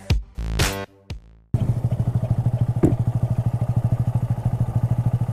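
Electronic music ending about a second and a half in. After it, a Honda Grom's 125 cc single-cylinder engine runs with an even, rapid pulse, and there is one short sharp noise about three seconds in. The rider puts a noise from the bike down to the brake caliper or the rotor.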